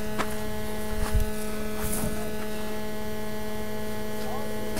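A steady, unchanging hum with several higher tones stacked above it, with a couple of soft knocks about a second in.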